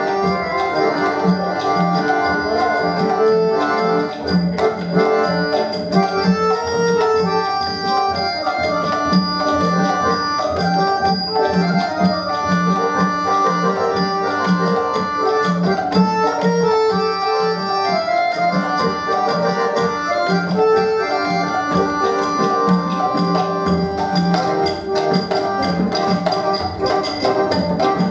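Live Bengali Baul folk music. A harmonium holds and plays melody lines over a steady beat on tabla and a barrel drum.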